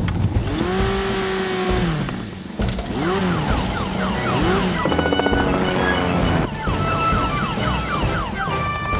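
Cartoon emergency siren on a rescue quad bike wailing, rising and falling in pitch, over background music.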